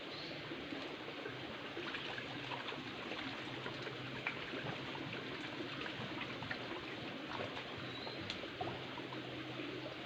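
Shallow rocky stream trickling steadily over stones, with scattered small clicks and splashes throughout.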